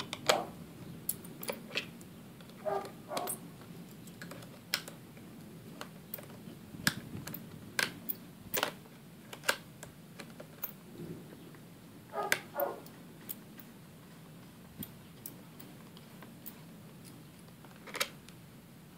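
Small tools clicking and scraping against the tiny screws of a 2007 white MacBook's polycarbonate bottom case as they are unscrewed. The light, sharp clicks come at irregular intervals, about a dozen distinct ones.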